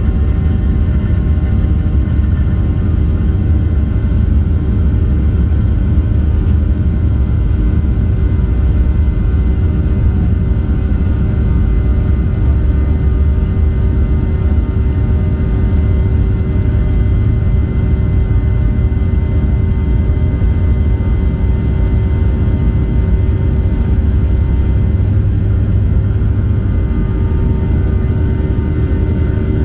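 Cabin noise inside a Boeing 737-800 rolling along the runway: its CFM56 jet engines run at a steady pitch, with several held tones over a deep, continuous rumble from the wheels and airframe.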